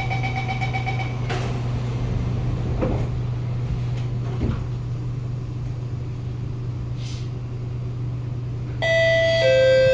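Door-closing warning beeps inside a Kawasaki Nippon Sharyo C751B train carriage, stopping as the doors shut about a second in, over a steady low hum in the car. Near the end, a two-note falling chime that heralds the next-station announcement.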